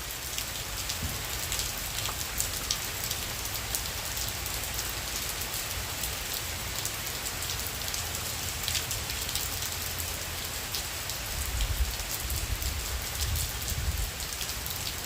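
Heavy tropical-storm rain falling steadily, a dense patter of drops on surfaces. A low rumble swells for a few seconds about two-thirds of the way through.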